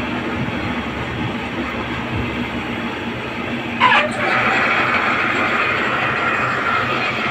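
Metalworking machinery working a plate bore, a steady mechanical rumble. About four seconds in comes a short sharp squeal, and after it a louder, higher hiss carries on.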